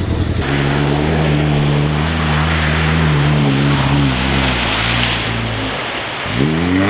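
UAZ off-roader's engine pulling at high revs as it ploughs through deep, muddy floodwater, over a loud hiss of spraying water. About five seconds in the engine note sags, then climbs sharply again as it revs back up.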